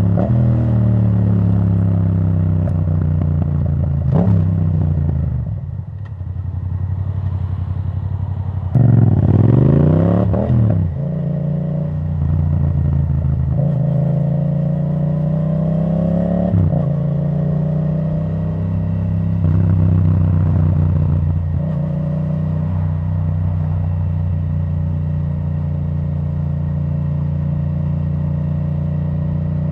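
2017 Yamaha MT-07 parallel-twin engine on the move through a custom Akrapovic titanium exhaust with the dB killer removed. The note falls as the bike slows at first, rises under hard acceleration about nine seconds in, then holds a steady cruising note with small throttle changes.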